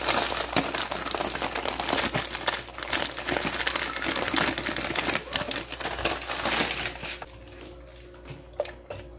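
Plastic packet of grated coconut crinkling as it is squeezed and shaken out into a pot. The crinkling stops about seven seconds in.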